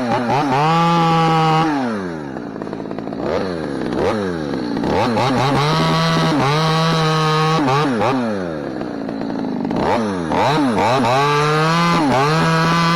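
Two-stroke chainsaw revved to full throttle and let back to idle again and again: three held full-speed runs of a second or two, with short throttle blips between, as in short trimming cuts clearing stubs and small limbs from the trunk.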